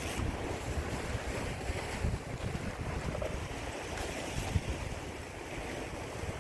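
Wind buffeting the microphone, with a low rumble over the wash of sea waves on a rocky shore.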